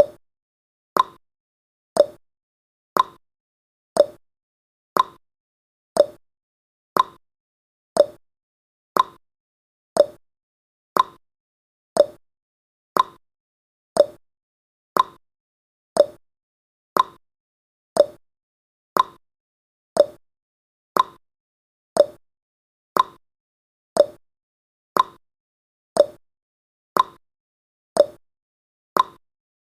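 Countdown timer's tick sound effect: a short, sharp tick once every second, evenly spaced, with silence between ticks.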